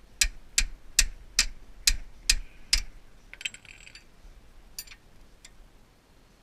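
Sharp metallic clicks from hand-tool work, eight in a row at about two and a half a second. A short rattle follows, then two more single clicks.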